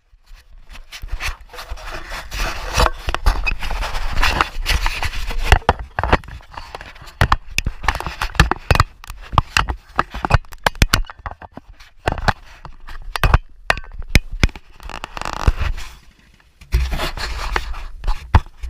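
Scraping, rustling and knocking of uniform fabric and gear rubbing against a body-worn camera's microphone, with irregular clicks and bursts of low rumble as the wearer moves.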